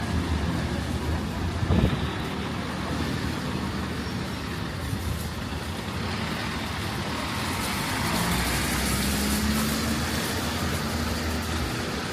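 City street traffic: vehicles passing with a steady rush of tyre and road noise, a short knock about two seconds in, and an engine hum later on.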